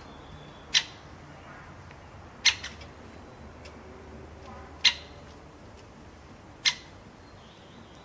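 Great spotted woodpecker giving sharp single 'kik' calls, four times about two seconds apart.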